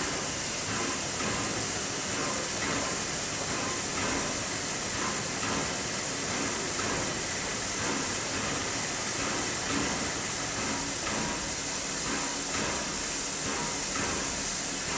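Steady hiss of escaping steam from the standing SNCF 241P steam locomotive, 241P17, as it is kept in steam.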